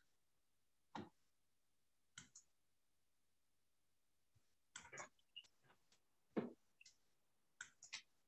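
Near silence broken by a handful of faint, scattered clicks and taps at irregular intervals, the strongest a soft knock about six seconds in.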